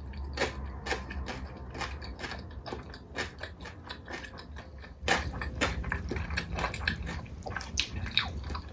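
Close-miked chewing and biting on spicy chicken feet: many irregular small wet clicks from the mouth, getting louder about five seconds in.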